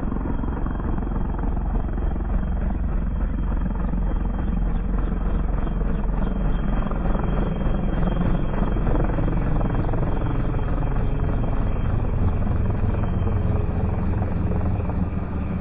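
Light helicopter with a two-bladed main rotor lifting off and climbing away, its engine and rotor running steadily with a rapid rotor beat.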